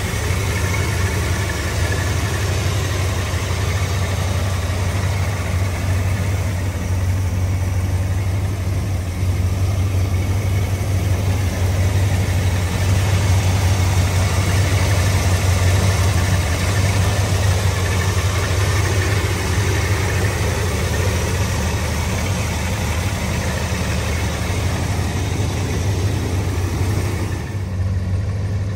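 Ford 460 cubic-inch big-block V8 with a four-barrel carburettor idling steadily, heard from the open engine bay. The sound dips briefly near the end.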